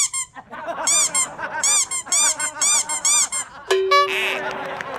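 Cartoon squeaky-shoe walking sound effect: a run of high squeaks, each rising and falling in pitch, coming in quick pairs like footsteps, about a dozen in three and a half seconds. Near the end a different effect cuts in with a steady held tone.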